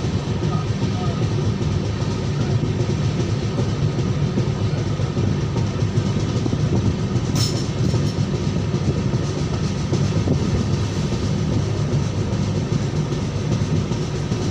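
Passenger train coach running along the line, heard through its open door: a steady low rumble of wheels on the rails, with one brief sharp high noise about seven seconds in.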